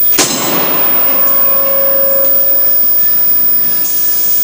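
A forge running with a steady rushing noise, and a single sharp metallic clank just after the start that rings on for about two seconds, as hot stock is handled with tongs at the forge.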